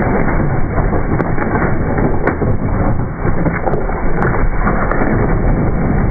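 Dirt bike engine revving hard while the rear tyre scrabbles and spins on rock and loose dirt, with scattered clicks and knocks of stones. The bike is losing traction on a steep rock climb and tipping over backward.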